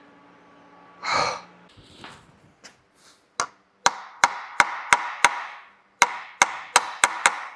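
Chipping hammer tapping on a fresh, contaminated weld on an Allison transmission's aluminum case: two runs of sharp metallic taps, about three a second, with a short pause between them. A short breathy exhale comes about a second in.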